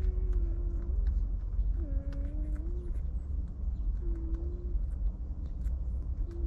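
A fly buzzing past in short passes, four times, over a steady low rumble, with faint scattered ticks.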